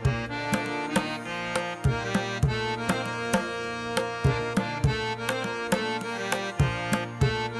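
Instrumental background music: a regular hand-drum rhythm over sustained melodic tones.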